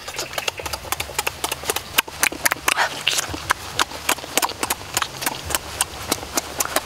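Close-up eating noises: rapid, irregular lip smacking and wet chewing while eating cooked duck eggs.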